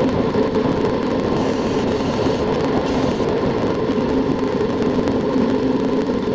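Wind and road noise from a camera mounted on a road bike, sped up twenty times into a steady, dense rumble with a constant hum running through it.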